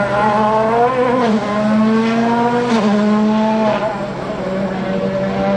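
A World Rally Car's turbocharged 1.6-litre four-cylinder engine running hard on a rally stage, its pitch dropping and climbing again with gear changes three times.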